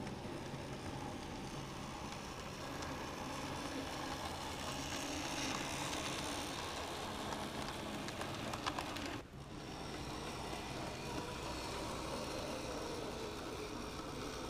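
N scale model train running on the track: the locomotive's small motor humming and the wheels rolling over the rails, with a few light clicks. The sound breaks off briefly about nine seconds in.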